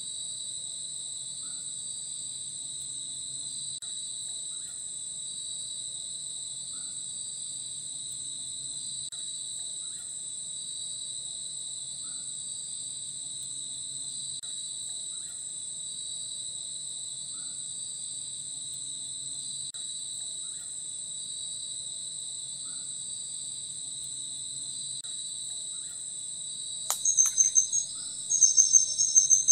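Steady high-pitched chorus of rainforest insects, with a faint short chirp repeating about every second and a half beneath it. Near the end comes a sharp knock, then a louder high call in quick pulsing bursts.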